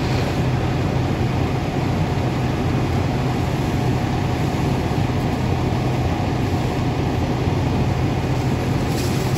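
A fire truck's diesel engine running steadily: a constant low hum under an even rushing noise.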